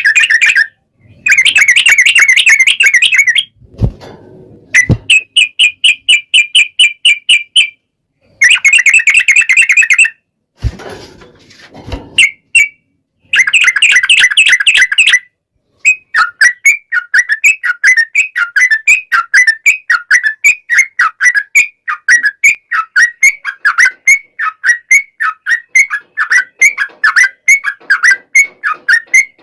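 Yellow-vented bulbul (trucukan) singing long chattering runs of quick repeated notes, in several loud bursts with short gaps. From about halfway it becomes one unbroken run of about four to five notes a second. A few faint low knocks fall in the gaps early on.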